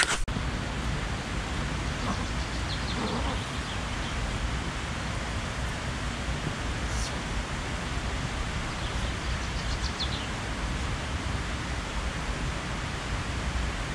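Steady rushing outdoor noise, even and unbroken, with a few faint high chirps now and then.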